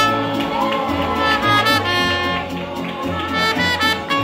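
Mariachi band playing live: strummed guitar over a bass line of low repeating notes, with a bright held melody on top.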